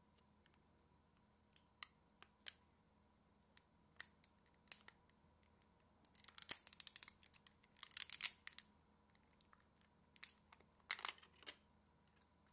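Small cardboard mystery box of a Funko Bitty Pop mini figure being opened by hand: scattered light taps and clicks, then bursts of crinkling and tearing about six and eight seconds in and again near the end, as the clear plastic figure case comes out.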